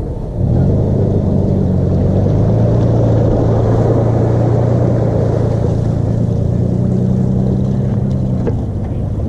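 Small boat outboard motor starting about half a second in and running steadily at a low idle, churning the water at the stern. It stops a little before the end.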